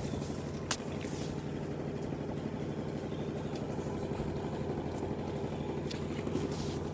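Washing machine running with a steady low rumble, with one sharp click about a second in.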